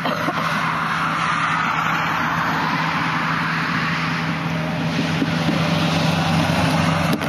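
Motor vehicle running steadily: a constant low engine hum under an even hiss of road or wind noise, growing a little louder near the end.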